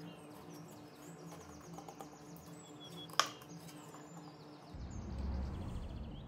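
Quiet kitchen with birds chirping faintly in the background and one sharp click about three seconds in. From about two-thirds of the way through, a low steady rumble sets in as thick cake batter is poured from a blender jug into an aluminium tube pan.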